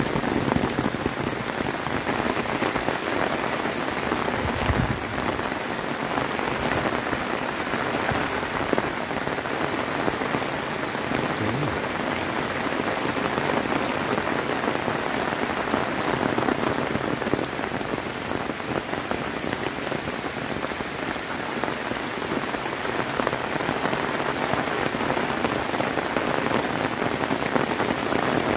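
Heavy rain falling steadily in a dense, even hiss, with a brief low thud about five seconds in.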